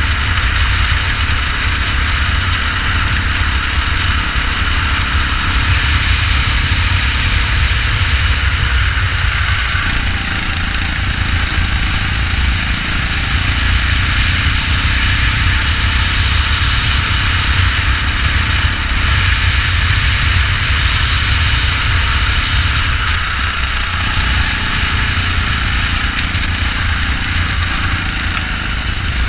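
Go-kart engine running steadily at race pace over a heavy low rumble.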